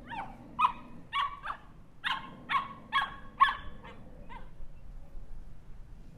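Small dog barking: about ten short, high-pitched barks in quick succession, the last two fainter. The barking stops at about four and a half seconds.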